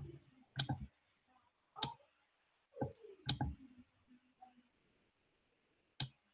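Half a dozen sharp clicks and light knocks at irregular intervals, the kind made by handling a mouse, keyboard or desk objects near the microphone.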